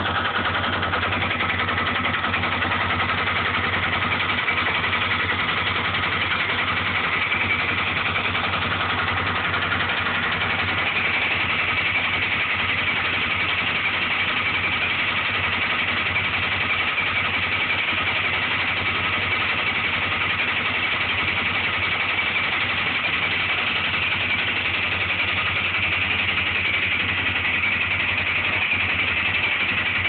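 Honda 400EX ATV's single-cylinder four-stroke engine idling with a loud knock, and an extra-loud knock now and then; the owner rules out the valves as the cause.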